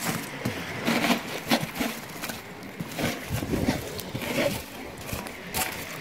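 Lumps of charcoal clinking and crunching in a steel grill box as a wooden stick rakes them over foil-wrapped potatoes, in irregular knocks and scrapes.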